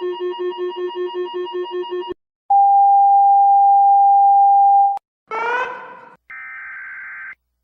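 Synthesized alert tones of a mock EAS alarm. A rapidly pulsing organ-like chord cuts off about two seconds in. After a brief gap comes a loud steady single tone lasting about two and a half seconds, then a short sweep rising in pitch and a duller buzzing tone near the end.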